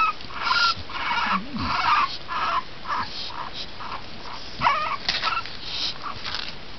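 A litter of three-week-old bulldog puppies squeaking and whimpering in a huddle: a quick string of short, high squeaks, with one longer wavering whine a little after halfway.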